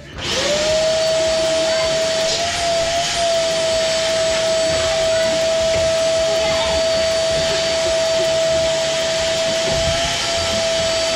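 Canister wet-and-dry vacuum cleaner starting up: its motor quickly spins up to a steady high whine with a loud hiss of rushing air. The pitch wavers slightly a couple of times as the hose nozzle sucks along the wooden bed-frame slats.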